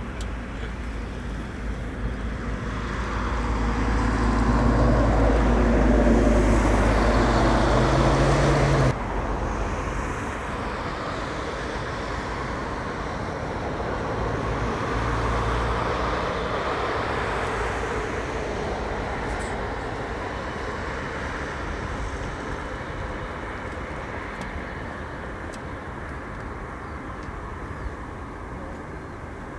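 Airbus A380 jet engines (Rolls-Royce Trent 900) running as the airliner taxis: a steady rumble and hiss with a low hum, swelling over the first several seconds, dropping abruptly about nine seconds in, then slowly fading.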